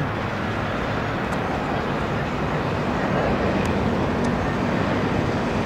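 Steady road traffic noise from cars on a wide city avenue, an even rushing hiss without distinct events.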